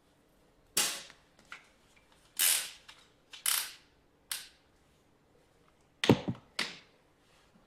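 A series of sharp clicks and short scrapes, about eight spread irregularly, with a close pair about six seconds in. These are hard drive and recorder hardware being handled.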